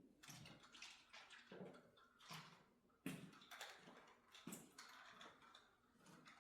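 Faint, irregular rubbing and handling strokes of hand car cleaning, a few each second.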